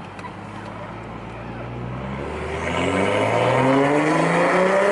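BMW F10 535i's turbocharged inline-six with a downpipe and muffler delete, first a low steady drone, then, about two seconds in, accelerating hard: the exhaust note climbs steadily in pitch and grows loud.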